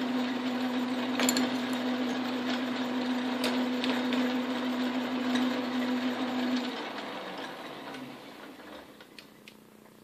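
Metal lathe running with a steady motor hum, then switched off about two-thirds of the way in and winding down to a stop over a couple of seconds. A few light clicks are heard along the way.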